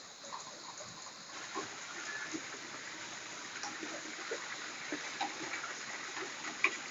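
Steady hiss of rain and wet road, with scattered light ticks of raindrops.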